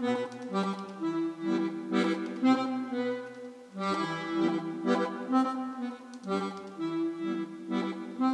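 Instrumental music led by an accordion, held chords with a steady rhythmic pulse of about two note attacks a second.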